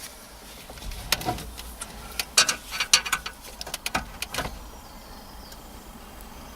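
Sharp plastic clicks and rattles of wiring harness connectors being worked loose from the back of a car radio, a quick run of them from about a second in until past the middle.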